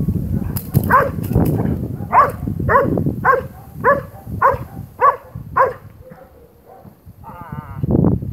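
A 14-month-old Belgian Malinois on a leash barking about eight times, roughly two barks a second, at a decoy during protection bite work. Rough scuffling on the ground comes first.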